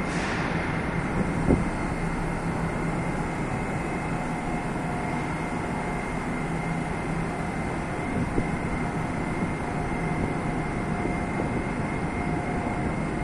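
Moscow Metro train at an underground station platform, standing and then pulling out: a steady rumble with a faint high whine running through it. A single sharp knock sounds about one and a half seconds in.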